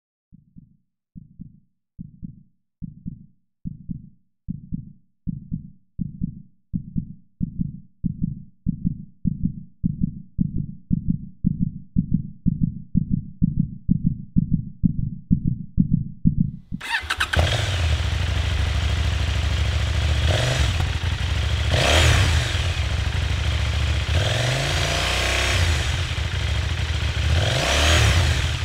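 Deep, evenly spaced thumps, a little under two a second, growing steadily louder. About seventeen seconds in, a KTM 790 Duke's parallel-twin engine cuts in loud and revs several times, each rev rising and falling.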